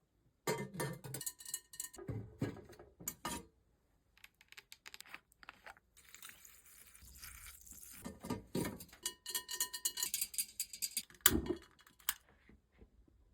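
Unpacking and handling of a steel bioethanol fireplace and its parts: clusters of small metallic clinks and knocks, with one louder thump about eleven seconds in.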